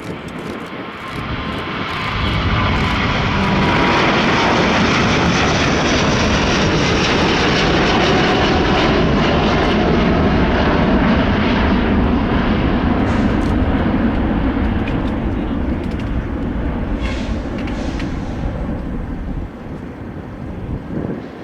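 Airbus A330-900's Rolls-Royce Trent 7000 jet engines passing at takeoff power, the noise swelling over the first few seconds, staying loud for several seconds, then slowly fading, with a faint falling whine early on.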